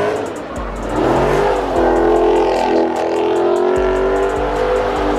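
Dodge Charger's engine revving up about a second in and then held at high revs as the car spins its rear tyres in donuts.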